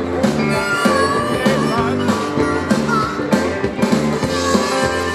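Live rock band playing a passage between sung lines: drums keeping a steady beat under bass and strummed acoustic guitar.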